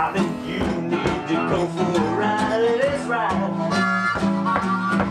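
Background music: harmonica playing over plucked guitar, with sliding, bent notes about halfway through.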